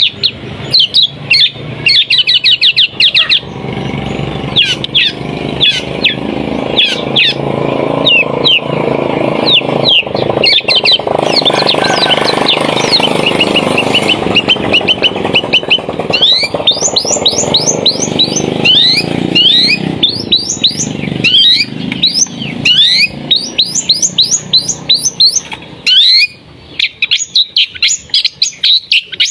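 Long-tailed shrike (pentet) singing in rapid, loud strings of sharp, sweeping whistled notes, the fast 'tembakan' bursts prized in this bird's song. A broad background noise swells under the song in the middle stretch.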